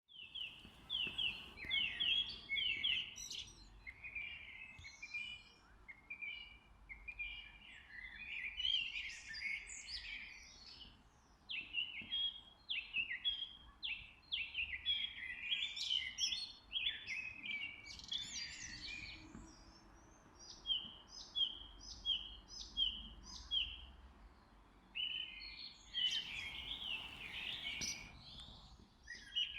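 Songbirds singing and chirping, several calls overlapping in varied trills and twitters. About two-thirds of the way through, one bird repeats the same short note about twice a second for a few seconds.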